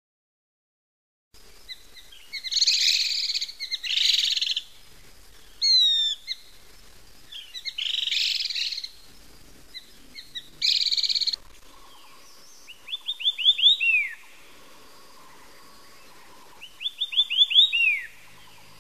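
Rufous-crowned laughingthrushes giving harsh, noisy chattering calls in bursts, then a White-eared Sibia singing twice: a quick run of short whistled notes that grows louder and ends in a longer falling note.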